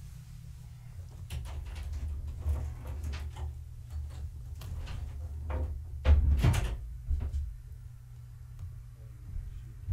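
Kittens scampering and wrestling on a cloth-covered floor: a run of light knocks and rustles, with a louder thump a little past halfway, over a steady low hum.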